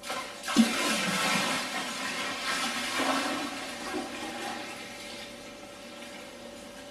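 Fermented sugar wash being transferred from a bucket into the boiler of a home reflux still: a gush of liquid that starts with a splash, then rushes and gurgles before tapering off.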